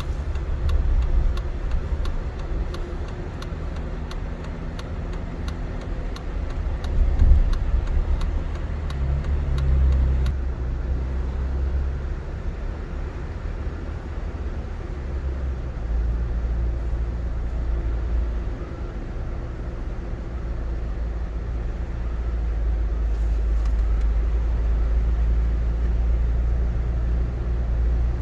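Car driving, heard from inside the cabin: a steady low rumble of engine and tyres that grows heavier about halfway through. A faint regular ticking runs under it for the first ten seconds or so.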